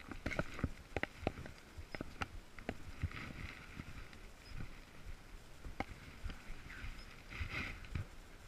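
Footsteps on a brick and concrete path strewn with dry leaves, irregular and unhurried, with branches and leaves brushing against clothing and gear in rustling patches a few seconds in and near the end.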